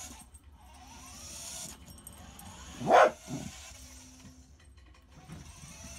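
A corgi barks once, about halfway through, followed by a softer second sound just after.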